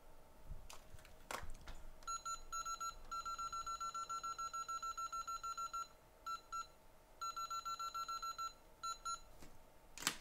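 Hot air rework station's control panel beeping in quick runs of short, identical beeps, about seven a second, with brief pauses between runs, as its settings are adjusted. A few faint clicks come before the first run.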